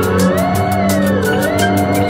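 Music with a steady beat, low sustained notes and a lead melody that slides up and down in pitch.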